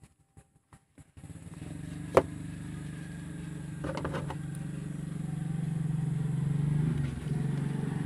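A motor vehicle engine running with a steady low hum that starts about a second in and swells until about seven seconds, then eases off. There is a sharp click about two seconds in and a few softer clicks around four seconds.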